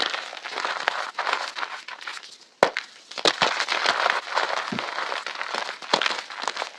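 Reformed chalk crunching and crumbling in dense crackles, with a few sharp snaps, the loudest about two and a half seconds in.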